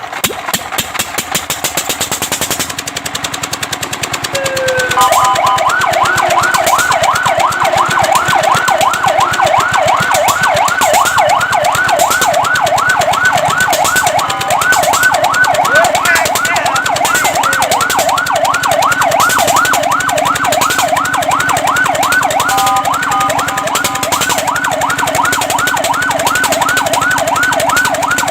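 Fire truck siren sounding a fast yelp, a rising sweep repeated about three to four times a second, which starts about five seconds in and is briefly broken by a short steady tone near the end. Before it, for the first few seconds, there is a rapid even rattle.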